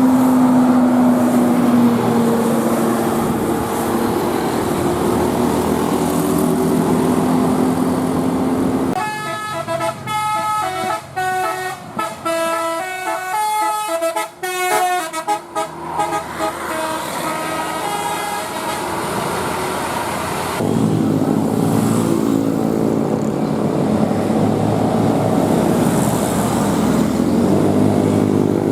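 Telolet basuri musical air horn on an Indonesian bus playing a tune of short stepped notes, starting about nine seconds in and lasting around seven seconds. Before and after it, bus engines and road traffic run loud.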